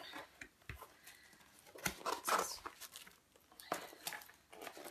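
Tissue paper in an opened box rustling and crinkling as it is handled, in a few irregular bursts, the loudest about two seconds in.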